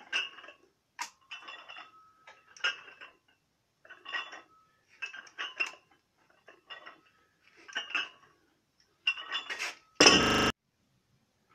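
Plate-loaded dumbbells clinking, the metal plates knocking on the handles with each curl, roughly once a second. Near the end a single loud crash as the dumbbells are dropped to the concrete floor.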